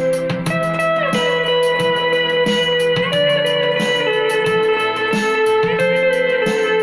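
Givson Monalisa electric lap steel guitar playing a sustained melody, its notes gliding up and down between pitches under the steel bar. It plays over an accompaniment with a bass line and a steady ticking beat.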